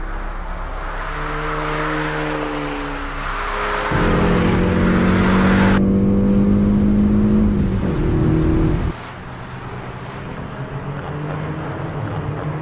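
Hyundai Veloster N's 2.0-litre turbocharged four-cylinder engines running as the cars lap a race track, heard first from the trackside. About four seconds in, the sound switches to inside the cabin: the engine is louder and pulling hard, its pitch rising slowly before dropping near the eight-second mark. A second later it returns to the quieter engine sound of the cars heard from the trackside.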